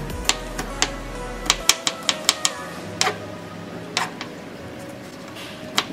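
Knife chopping peeled garlic cloves on a plastic cutting board: sharp, irregular taps of the blade on the board, coming quickly in the first half and more sparsely after, over background music.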